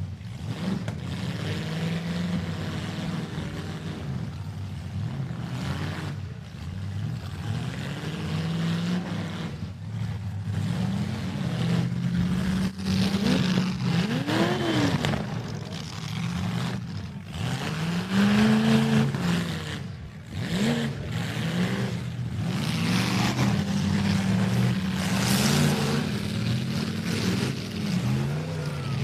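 Several demolition derby cars' engines revving up and down hard as they push and ram each other, with the pitch rising and falling again and again and a burst of hard revving about two-thirds of the way in.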